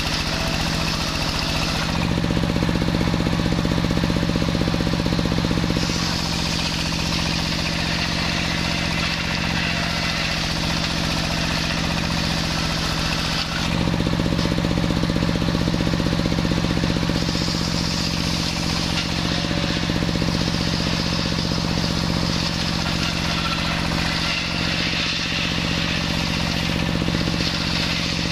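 Homemade table circular saw ripping a plank of waru wood, its drive running with a steady low drone. The high hiss of the blade in the wood swells and fades several times as the plank is fed through, and the drone dips briefly about halfway.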